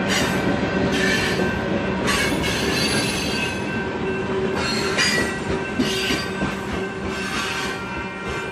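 Union Pacific freight cars rolling past a grade crossing, with steel wheels squealing on the rails. The squeal comes in high surges about once a second over a steady rumble, and eases slightly near the end.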